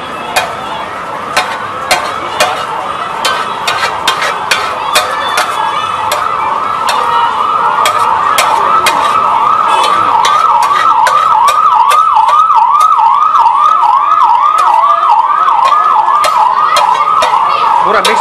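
A siren with a fast rising-and-falling yelp, about two to three sweeps a second, growing louder over the first half and then holding. Over it, a metal spatula clicks and taps on a street-food griddle as bread cubes are chopped and tossed, the taps frequent in the first half and sparser later.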